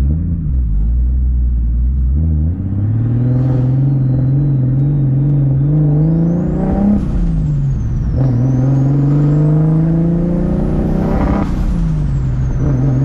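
Turbocharged 1.5JZ inline-six accelerating hard through the gears. The engine note climbs with a rising turbo whistle above it, drops at an upshift about seven seconds in, climbs again, and drops at a second shift near the end.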